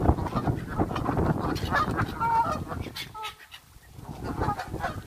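Canada geese honking, with a few clear calls about two seconds in over the general noise of the feeding flock.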